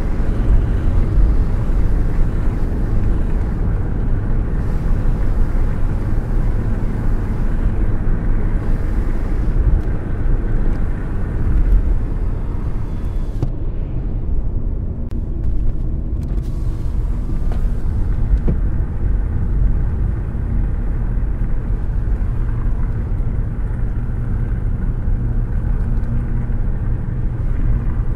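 Car driving along, a steady low engine and road rumble.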